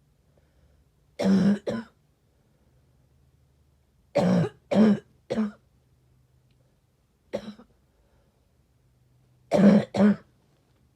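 A sick person coughing in short fits: two coughs, then a run of three, a single short cough, and two more near the end.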